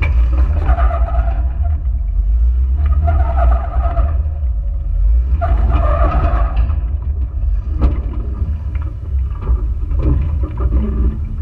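Jeep Wrangler JK driving slowly over sandstone slickrock, heard from a camera mounted low on the outside of the body: a heavy, steady low rumble, with three short higher-pitched whines in the first seven seconds or so.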